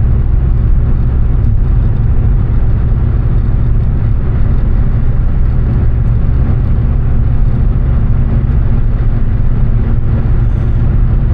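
Volkswagen Jetta driving at a steady pace: a constant low rumble of engine and road noise.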